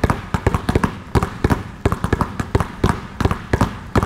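Three basketballs dribbled hard and low on a hardwood court in between-the-legs and crossover moves, a fast, uneven run of overlapping bounces.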